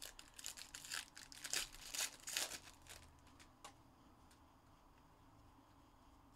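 Foil wrapper of a Panini Contenders Baseball trading-card pack being torn open and crinkled in the hands. It is a run of sharp crackles that stops after about three and a half seconds.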